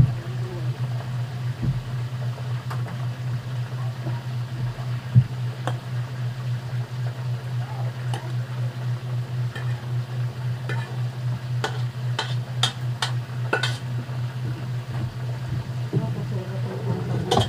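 Kitchen cooking sounds: a steady low hum under a faint sizzle, with a run of sharp clinks about ten to fourteen seconds in.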